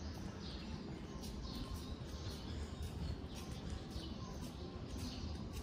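Outdoor street ambience: footsteps scuffing on pavement at an even walking pace, with faint bird chirps from the trees.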